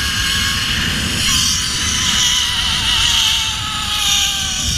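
Zipline trolley pulleys running along a steel cable: a thin whine that slowly falls in pitch, over heavy wind rumble on the microphone.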